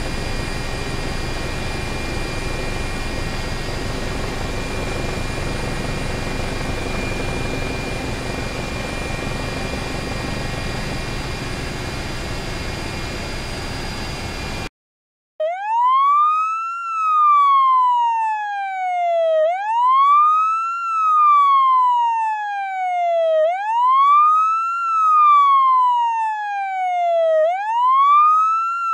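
Helicopter sound effect: a steady rotor and engine noise with a thin high whine, cutting off abruptly about halfway through. After a brief gap, an emergency-vehicle siren sound effect wails, each cycle a quick rise in pitch and then a slow fall, repeating about every four seconds.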